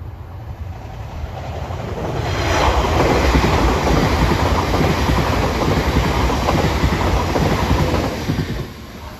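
Two coupled TransPennine Express Class 185 diesel multiple units passing through the station: engine and wheel-on-rail noise builds as they approach, stays loud for about six seconds as the carriages go by, then falls away sharply near the end.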